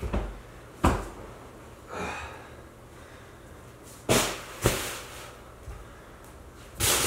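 A few sharp knocks and thumps, one about a second in, two close together around four to five seconds in and one near the end, with breathing between them, from a person moving about and handling things.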